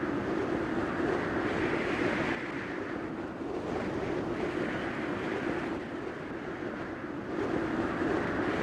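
"Blurred sound effect" audio: a steady rushing noise with a strong low band, dipping somewhat quieter from about two seconds in until shortly before the end.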